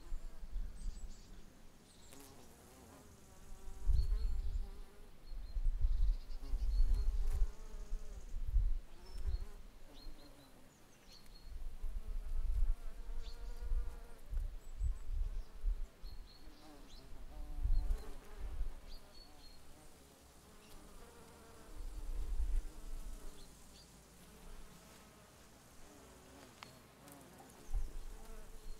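Bees buzzing as they fly about close by, in several spells, the hum rising and falling in pitch as they pass. Low rumbles come and go underneath.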